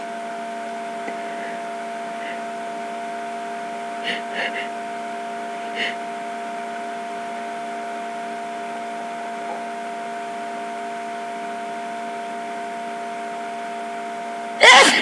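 A single loud sneeze near the end, set off by an allergy-tickled nose. Before it come a few faint, short breaths about four and six seconds in, all over a steady electrical hum in the room.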